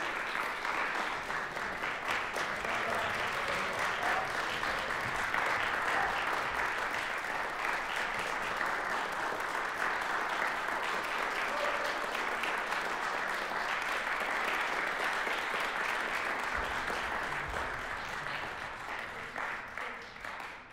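Audience applauding, a steady dense clapping that fades out near the end.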